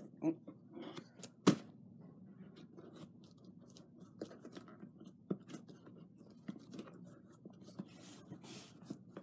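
A knife cutting at a cardboard package: faint scraping with scattered small ticks, and one sharp knock about a second and a half in.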